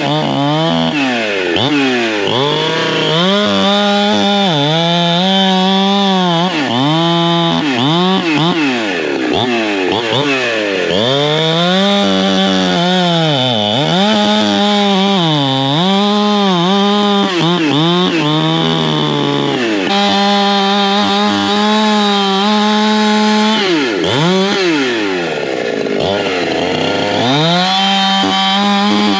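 Holzfforma G372XP Pro two-stroke chainsaw cutting a log, its engine pitch dipping repeatedly as the chain bites under load and climbing back to full revs between strokes. About 24 seconds in the engine drops nearly to idle and then revs back up.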